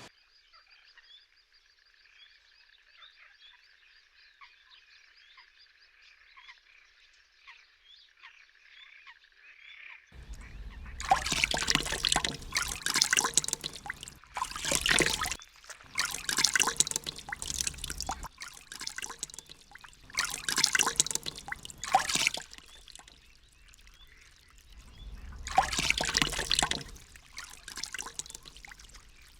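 Faint high chirping for about ten seconds, then repeated bursts of water splashing, each lasting a second or more, as birds splash in a shallow pond.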